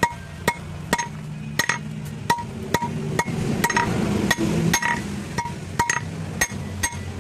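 Blacksmith's hammer striking metal while forging a hasua (sickle) blade: sharp ringing blows at an uneven pace of about two a second, each leaving a short metallic ring. A low steady hum runs underneath.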